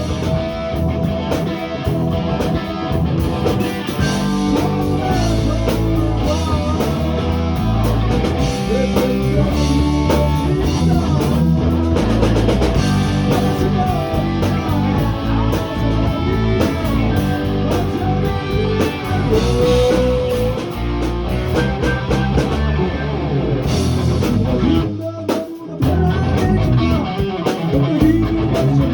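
Rock music played on guitar and drum kit. It thins out briefly near the end, then picks up again.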